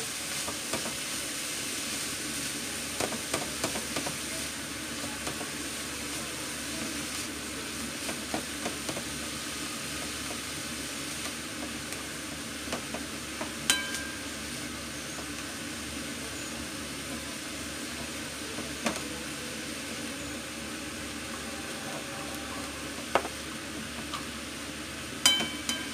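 Minced pork and beef frying with diced onion in a pan, sizzling steadily while a spatula stirs and breaks it up. A few sharp knocks of the spatula against the pan come in the second half.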